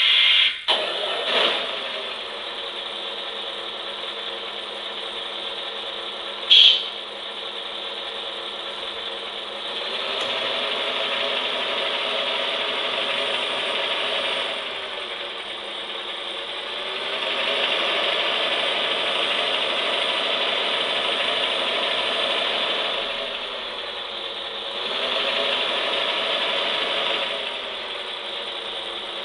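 The RC truck's engine sound module, a simulated truck diesel engine played through the model's small onboard speaker: it starts up, then idles steadily and revs louder three times as the throttle is worked. A brief sharp sound cuts in about six and a half seconds in.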